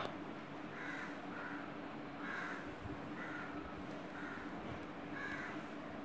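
Faint bird calls, short and repeating every half second or so, over a steady low room hum.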